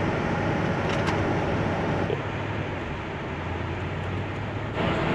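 Vintage Ford Econoline camper van on the move: steady engine hum and road noise, easing slightly about two seconds in and picking up again near the end.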